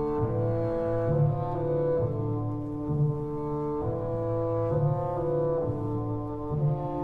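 Slow orchestral music: sustained brass chords, French horn and trombone, over a low bass line, the chords changing about once a second.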